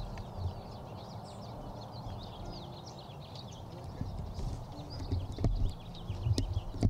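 Many birds chirping, short overlapping calls in quick succession, over a low rumble, with the thuds of footsteps on grass growing louder from about four seconds in.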